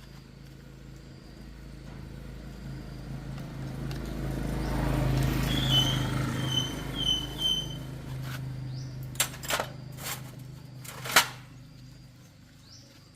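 A vehicle passes by: its engine hum swells to a peak about five seconds in and then fades away, with four short high chirps near the peak. Then come a few sharp knocks.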